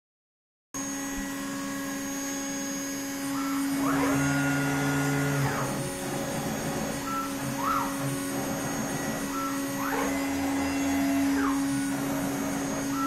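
CNC router moving through a program without cutting: its stepper motors whine up in pitch and back down as the gantry speeds up and slows down, twice on long moves and once on a short quick one, over a steady hum.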